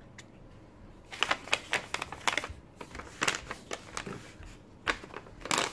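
Rolls of washi tape and paper packaging handled and set down on a tabletop: a quick irregular run of light clicks and taps with paper rustling, ending in a louder rustle.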